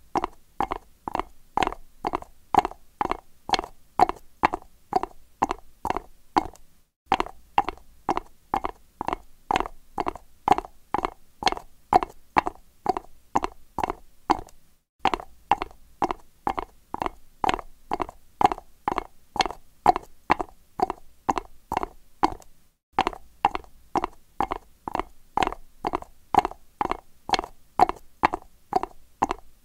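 Horse's shod hooves clopping on concrete at a trot: a steady, even rhythm of sharp knocks, about three a second, with brief breaks about every eight seconds.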